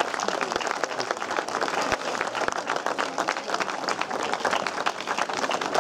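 A crowd applauding: many hands clapping densely and irregularly, holding steady throughout.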